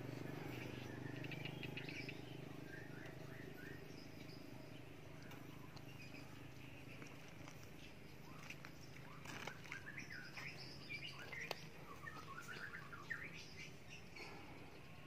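Birds chirping in short, scattered calls, busiest near the start and again in the second half, over a faint steady low hum.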